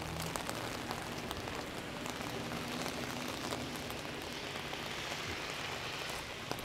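Heavy rain falling on an open umbrella held overhead: a steady wash of rain with many sharp, close drop ticks.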